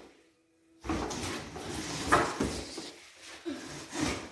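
A double bass in a thin padded soft bag being lifted and set into a hard shell case: uneven rubbing and rustling with several light knocks, starting about a second in.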